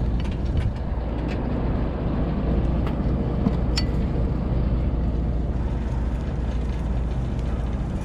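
Boat engine running steadily with a low, even hum, the engine that powers the deck hydraulics. A few light clicks come from rope and metal hardware being handled.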